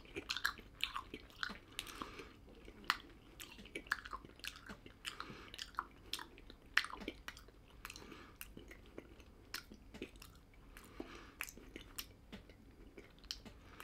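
A person chewing a mouthful of fruit-coated sweet puffed rice snack, a run of small irregular crunches and crackles.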